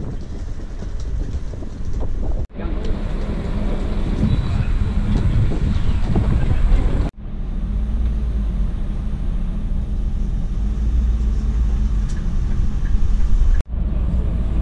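Tour coach's diesel engine running, heard from inside the cabin as the coach pulls away and drives: a steady low drone, with passengers' voices chattering for a few seconds. The sound breaks off abruptly three times.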